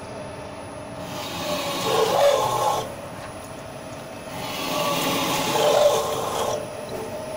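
Steel brake shoe drilling machine's drill cutting through a steel brake shoe twice, each cut building over about two seconds and stopping abruptly, over a steady machine hum.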